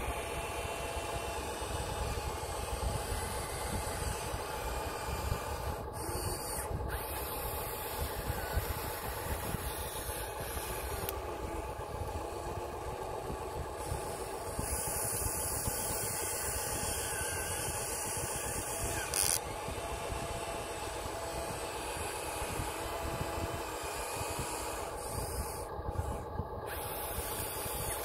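Remote-control excavator running, with a steady mechanical hum from its motors and gears as it digs and swings its arm.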